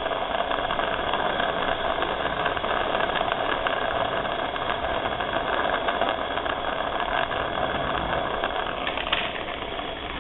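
Jeweler's soldering torch burning with a steady hiss as it heats a silver ring joint to flow hard solder.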